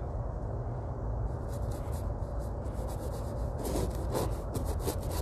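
Paintbrush strokes rubbing and scratching on a stretched canvas: a run of short, quick strokes starting about a second in and getting louder and closer together near the end, over a steady low background rumble.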